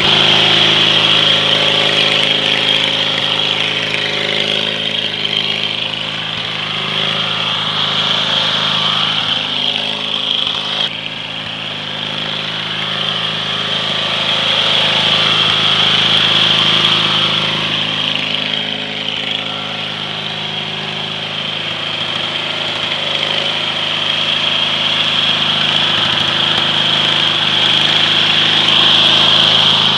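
Engine of an 18-horsepower Briggs & Stratton Craftsman lawn tractor running steadily as the tractor is driven through snow and mud, its level swelling and easing gently.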